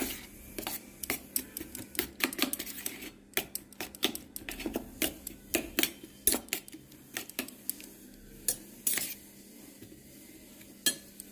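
A spoon beating eggs with chopped onion and chilli in a metal bowl, clinking against the bowl's sides in quick, irregular strokes. The clinks thin out about nine seconds in.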